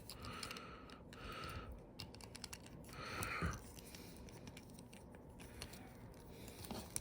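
Small plastic Beyblade X top parts clicking and tapping as they are handled and tried together, a run of irregular light clicks with a few brief rustles.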